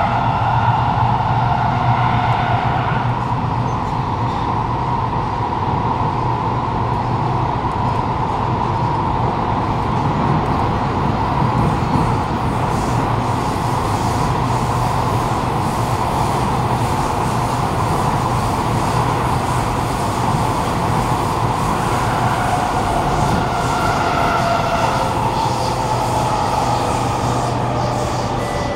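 Kawasaki Nippon Sharyo C751B metro train heard from inside the car while running through a tunnel: a steady rumble of wheels on rail with a low hum. A traction motor whine sounds in the first few seconds, and returns about two-thirds of the way in, falling in pitch near the end.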